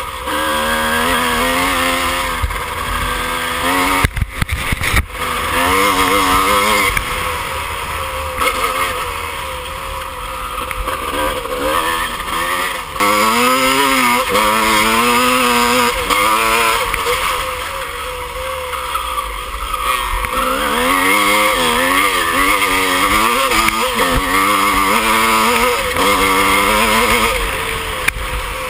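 Off-road dirt bike engine under hard acceleration, heard from the rider's own machine: the revs repeatedly climb and drop as it shifts and the throttle opens and closes over rough ground. A few sharp knocks about four to five seconds in.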